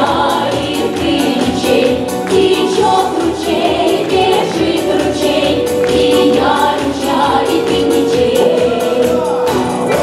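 Russian folk song performed with a group of voices singing over an accordion, in a brisk, lively rhythm with a steady beat.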